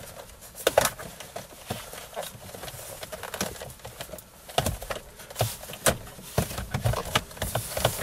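Plastic centre-console trim panel of a 2011 Kia Sorento, around the gear shifter and cup holders, being wiggled and pried up by hand while still caught underneath. It gives irregular plastic clicks, taps and creaks, with the sharpest snap about a second in.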